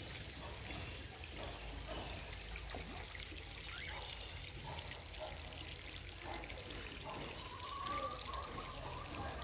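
Water trickling and pouring steadily into a pond, a continuous even splashing hiss.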